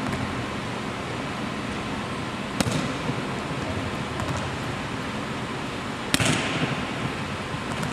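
Two sharp slaps of a volleyball being struck, about three and a half seconds apart, echoing in a gymnasium over a steady background hiss.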